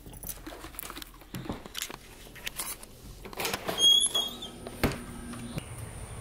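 Handling rustle and light knocks as a camera is carried through a doorway. A door squeaks open a little under four seconds in, the loudest sound, and a sharp latch-like click follows about a second later.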